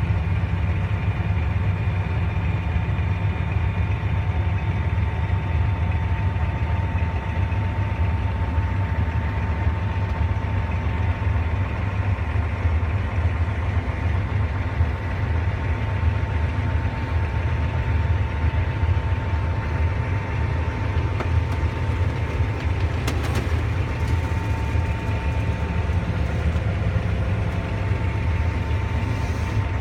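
Tractor engine running steadily, a deep even drone heard from inside the closed cab, with a faint steady whine above it.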